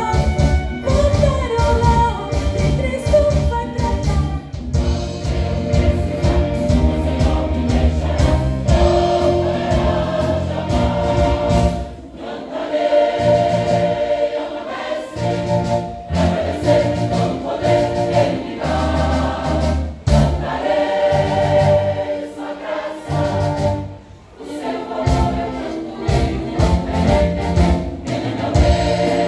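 A choir singing a gospel song with band accompaniment: held notes over a strong bass line and a steady beat. The music thins briefly twice, about a third of the way in and again later.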